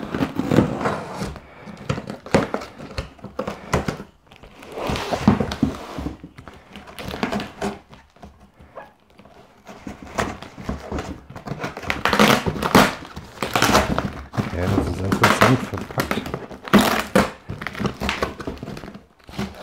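Scissors slitting the packing tape along a cardboard box's seam, then packing tape being ripped off and cardboard flaps torn open, in irregular scraping and ripping bursts with knocks as the box is handled.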